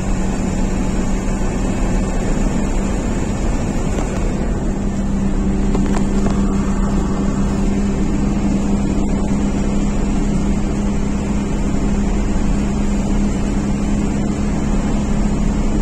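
Car engine drone and road noise heard from inside the cabin while driving at a steady speed: a constant low hum over even tyre rumble.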